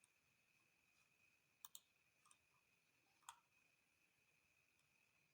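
Near silence: faint room tone with a thin steady high whine and a few soft clicks, a quick double click about a second and a half in and a single one past the three-second mark.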